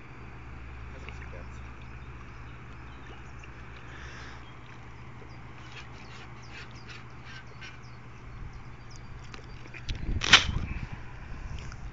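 Faint outdoor background: a low steady rumble with a few faint clicks, and one short, louder sound about ten seconds in.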